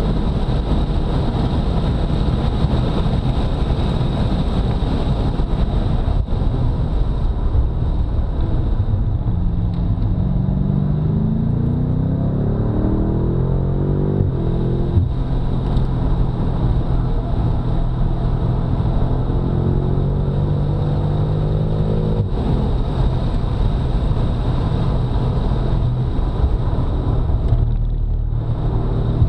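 BMW F90 M5's twin-turbo V8 running hard at track speed. About a third of the way in, the engine note climbs for several seconds under acceleration, then drops sharply at an upshift. Later it holds a steady pitch before briefly easing off near the end.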